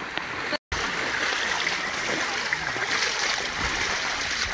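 Muddy floodwater rushing steadily, a continuous watery noise with faint splashing. The sound cuts out completely for a split second just under a second in.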